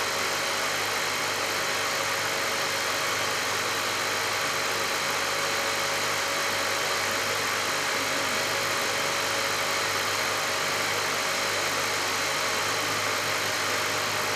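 BGA rework station running steadily after a laptop GPU has been lifted from its board: an even fan-and-air noise with a low hum underneath, unchanging throughout.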